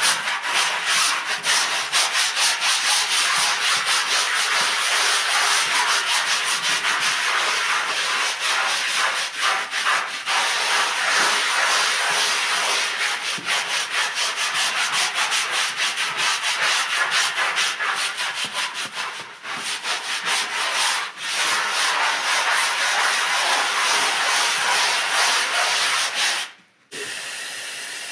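Hand scrub brushes scrubbing a soap-foamed rug pile in fast, continuous strokes by two people at once. Near the end the scrubbing stops suddenly and a steady hiss of water spray rinsing the rug begins.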